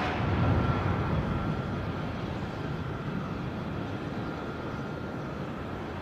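Jet roar from a Boeing C-17 Globemaster III's four turbofan engines at full power on its takeoff run and lift-off. A deep rushing roar with a faint steady whine above it, loudest about half a second in and growing fainter as the aircraft climbs away.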